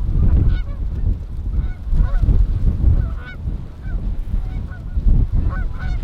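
Canada goose honks and clucks, many short calls one after another, over the heavy low rumble of strong wind buffeting the microphone.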